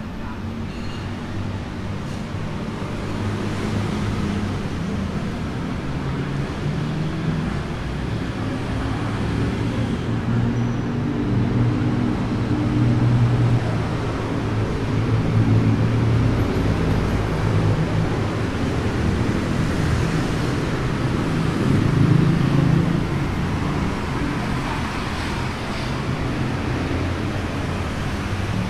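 Road traffic: motor vehicle engines passing and idling, the sound swelling and fading several times over a steady rumble.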